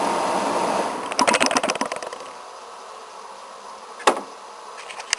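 A 1969 Westinghouse 8,000 BTU window air conditioner running on high, then shutting off: about a second in comes a second of rapid clicking and rattling, and the running noise drops away to a faint hum. A single sharp click follows about four seconds in.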